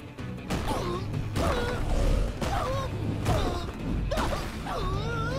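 Cartoon sound-effects mix of robotic machines: metallic creaks and groans that waver up and down in pitch, over a low rumble, with a series of sudden knocks and crashes.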